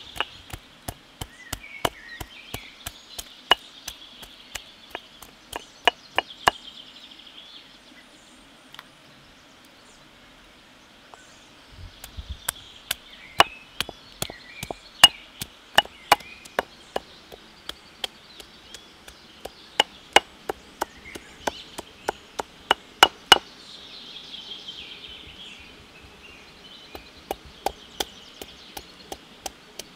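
Knife chopping on a wooden cutting board in runs of quick, sharp strikes, with a pause of a few seconds near the middle.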